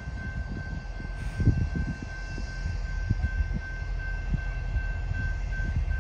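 Amtrak passenger train standing at a station platform with its diesel locomotive running: a low, uneven rumble with a steady high-pitched whine over it, and a louder thump about a second and a half in.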